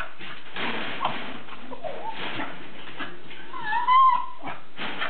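A small dog whining: a brief whimper about two seconds in, then a louder, longer whine near the end that wavers in pitch.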